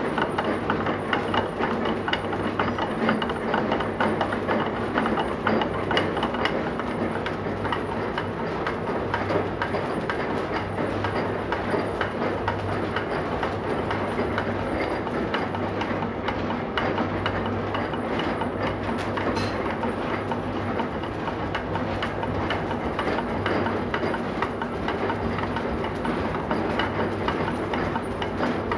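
Heavy machinery running steadily with a low hum and a dense, rapid rattling clatter.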